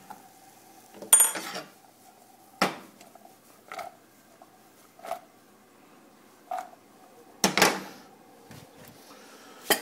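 Frying pan of diced onion and pepper being stirred with a spatula and shaken on the stove: scattered knocks and clatters of pan and spatula, about one every second or so. The loudest is about a second in, with a brief metallic ring, and another strong one comes at about seven and a half seconds.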